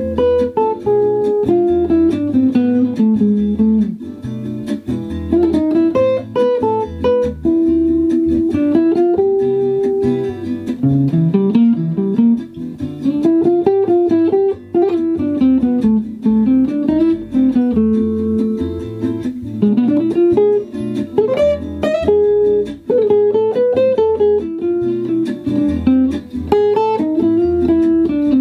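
Improvised single-note jazz guitar solo on a 1977 Gibson L5-CES archtop played through a Fender '65 Reissue Deluxe Reverb amp, the melody winding up and down and built mostly from the A harmonic minor scale, its G sharp set against the E7♭9 chord.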